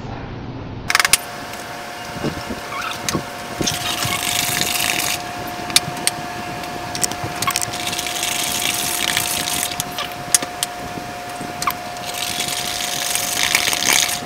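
Wire whisk beating eggs into creamed butter and sugar in a plastic bowl: repeated scraping and clicking against the bowl, over a steady high hum. The sound starts abruptly about a second in and stops abruptly near the end.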